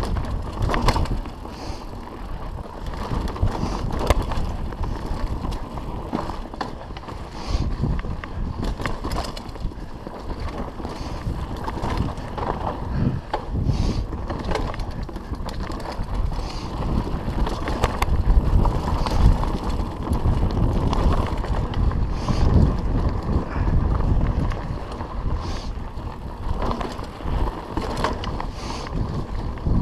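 Mountain bike riding fast down a rough dirt trail: a continuous rumble of tyres on dirt and wind on the microphone, with frequent rattles and knocks from the bike as it goes over bumps.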